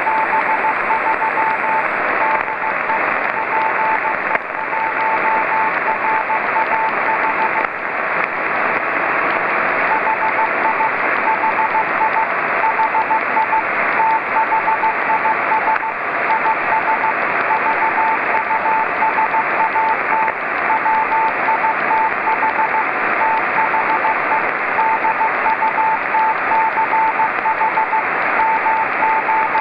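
Morse code from the VO-52 amateur radio satellite's Dutch transponder beacon on 145.860 MHz, heard through a Yaesu FT-817 in CW mode. It is a single keyed tone of dots and dashes over steady, narrow-band receiver hiss, with a brief pause about a third of the way in.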